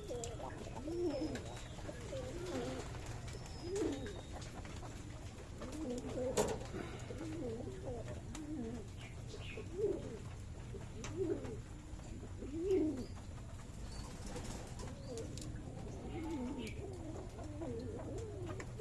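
Several Blondinette fancy pigeons cooing, their low rolling coos overlapping and repeating about every second or two over a faint steady low hum, with a few sharp clicks.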